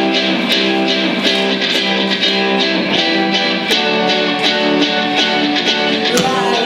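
Music with strummed guitar chords over a steady, even beat.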